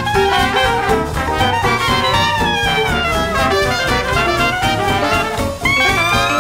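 Jazz music with brass horns playing. The horn lines slide downward through the middle, and a new held note comes in about five and a half seconds in.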